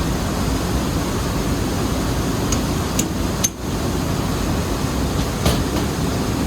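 Steady low rumble of rice mill machinery running, with a few short, sharp knocks of metal tools on metal scattered through it.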